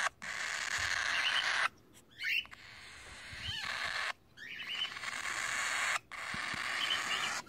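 Cockatiels giving short chirps over a steady hiss, which breaks off and resumes abruptly several times.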